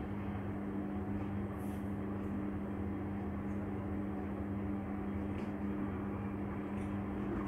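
A steady mechanical hum with an even low drone.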